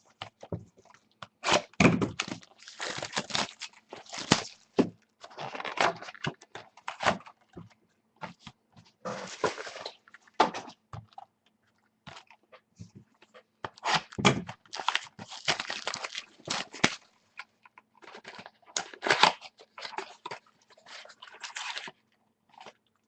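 Trading-card packaging being handled and opened: irregular crinkling and rustling of wrappers with scattered clicks and light thunks, over a faint steady electrical hum.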